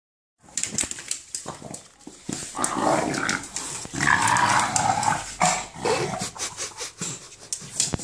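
English bulldog making a rough, gremlin-like growling monster sound while playing, in two longer stretches about two and a half and four seconds in. Scuffling and rustling from the dog moving on its bed and the floor runs through it.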